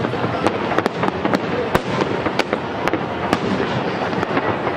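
Aerial fireworks bursting: sharp bangs at irregular intervals, roughly two a second, over a steady dense crackle.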